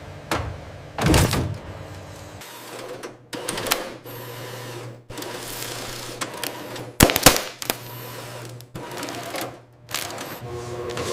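Machine sounds that change every second or two: sharp clicks and knocks, with short stretches of steady hum that start and stop abruptly.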